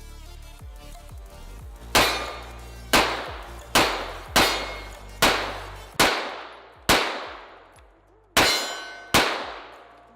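Rifle shots fired one after another, about one a second, nine in all, starting about two seconds in; each crack has a ringing tail. Background music plays under the start and stops about six seconds in.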